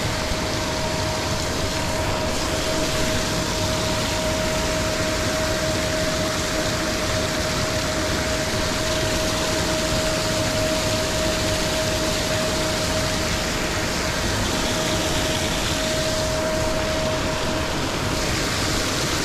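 Paddlewheel aerators running: a steady motor drone with a thin whine over the constant rush of churned, splashing water. The whine drops away near the end.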